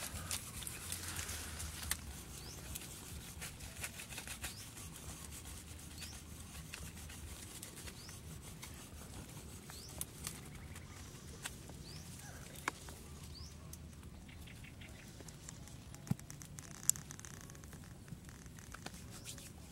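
Small fire of dry twigs crackling as it catches, with scattered sharp snaps and pops.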